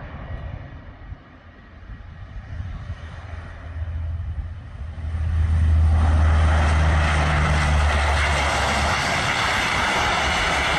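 Lockheed C-130 Hercules four-engine turboprop landing. A low propeller drone on approach turns, about halfway through, into a much louder steady rush as the aircraft touches down and rolls along the runway.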